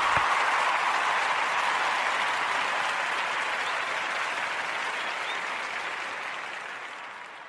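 Crowd applause, an even clatter of many hands, fading out gradually toward the end.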